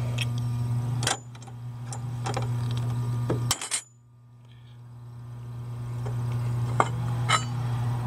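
A padlock being unlocked with its key and unhooked from a stainless steel bar: a few scattered metal clicks and clinks over a steady low hum. The hum cuts out about halfway through and fades back in.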